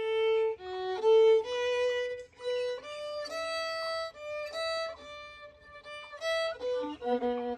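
Solo violin playing a slow melody, one note at a time, mostly long held notes with a few quicker notes near the end.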